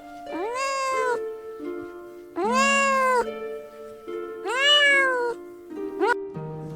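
Domestic cat meowing: three drawn-out meows about a second apart, each rising then falling in pitch, then a short one near the end, over background music.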